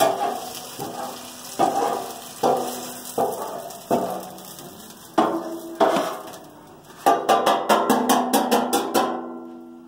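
Metal spatula knocking and scraping against the stainless-steel tub of a wok tub fryer, each stroke leaving a brief metallic ring, over the sizzle of aromatics frying in oil. About one stroke a second at first, then several quick strokes a second near the end as the sizzle fades.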